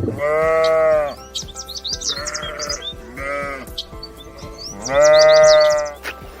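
Sheep bleating: four calls, a long loud one at the start, two shorter, wavering ones in the middle and another long loud one about five seconds in, with quick high chirps over them.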